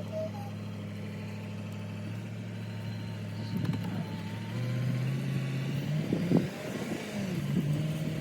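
A vehicle engine running steadily, then rising in pitch about halfway through as it speeds up, with a few knocks and bumps in the second half.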